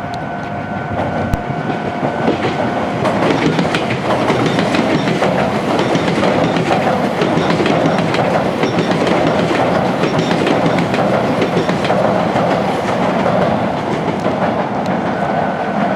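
Electric train running past close by, its wheels clattering over the rail joints and junction points in a continuous run of clicks over a steady rumble, with a faint steady tone at the start and again near the end.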